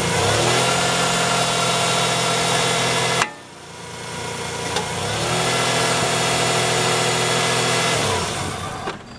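Toyota 3.0-litre V6 (1MZ-FE) engine running steadily, heard from under the car at its cracked rear engine mount. About three seconds in there is a sharp knock, after which the sound drops away and builds back up; it falls off again near the end.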